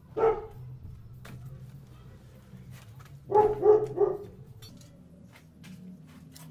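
A dog barking: one bark near the start, then three quick barks a little past the middle.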